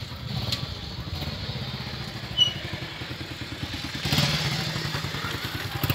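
Small motorcycle engine running at low speed, its level rising about four seconds in as it picks up. A brief high squeak sounds about two and a half seconds in.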